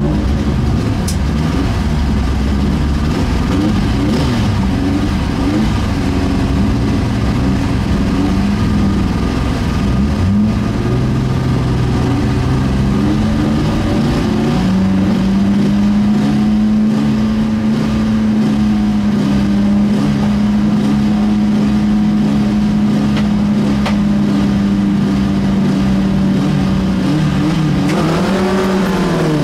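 BMW E36 car engine heard from inside the cabin, running and being revved unevenly on the start line. From about halfway it is held at steady revs. Near the end the revs rise sharply as the car launches off the line.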